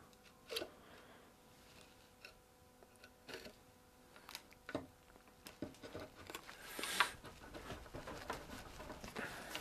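Faint, scattered clicks and knocks of wooden chair parts being handled and set in place during a dry fit, with a sharper knock about seven seconds in.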